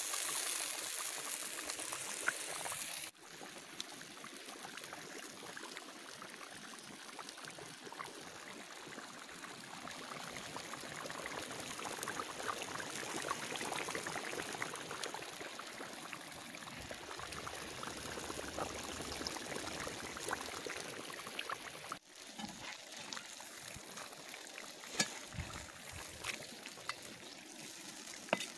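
Zirvak of beef and carrots bubbling at a boil in a kazan over an open fire: a steady hiss of boiling liquid with small scattered pops. The sound breaks off abruptly about three seconds in and again near the end.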